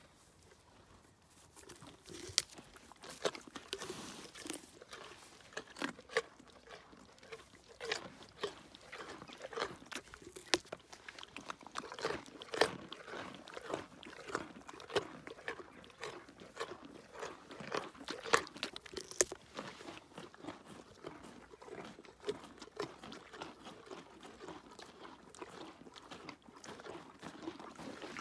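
Ponies crunching carrots close to the microphone: a long run of sharp, irregular crunches.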